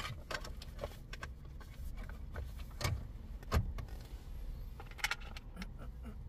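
Scattered plastic clicks and knocks as an aftermarket double-DIN touchscreen radio is pushed and seated into the dash opening, with the wiring behind it rustling and the keys hanging in the ignition jangling.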